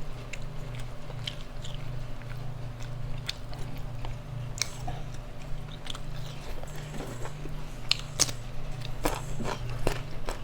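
A person chewing and biting food close to the microphone, with sharp crunches and wet clicks scattered throughout. A steady low hum sits underneath.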